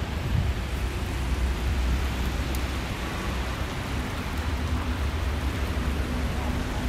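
Wet city street ambience in falling snow: a steady hiss of wet precipitation and car traffic on wet asphalt over a low rumble.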